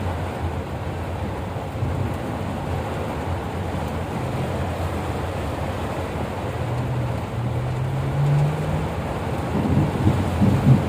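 A vehicle engine hums under a steady rush of heavy rain and wind noise. The engine's pitch rises for a couple of seconds about two-thirds through, and a few louder low rumbles and knocks come near the end.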